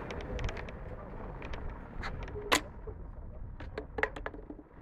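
Railway station ambience: a steady low rumble of trains and traffic, broken by a series of sharp clicks and knocks, the loudest about two and a half seconds in.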